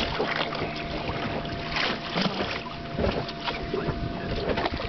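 Water splashing and sloshing against the side of a small boat in short irregular strokes, with wind on the microphone and a thin steady hum underneath.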